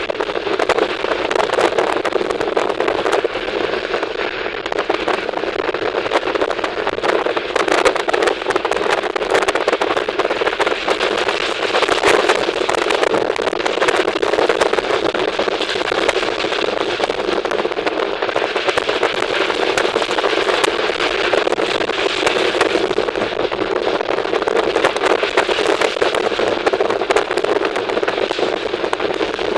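Moving train heard on board: a steady rattling noise with dense crackling clicks, running at an even level.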